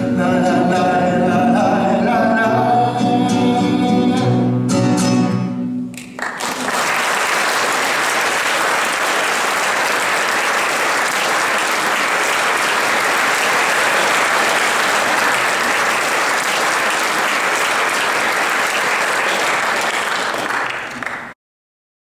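A sung song with instrumental accompaniment ends on its last notes, then an audience applauds steadily for about fifteen seconds until the sound cuts off abruptly near the end.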